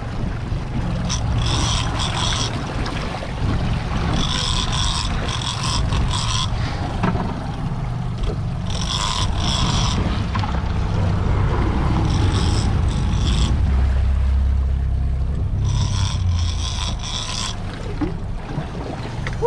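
A big-game conventional fishing reel whirring in five short bursts as line is worked back against a heavy fish on the line. Under it runs the steady low rumble of the boat's outboard motors.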